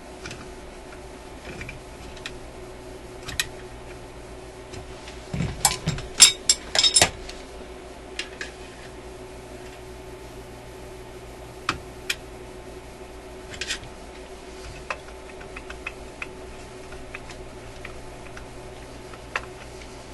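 A small metal tool clicking, scraping and clinking against a stubborn screw and the metal shielding can in a tube radio's chassis. The clicks come scattered, with a louder cluster of clinks about six to seven seconds in. A faint steady hum sits underneath.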